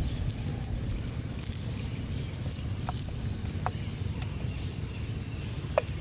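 Outdoor rural ambience: a steady low rumble with small birds chirping briefly several times in the second half and a few short, sharp high ticks.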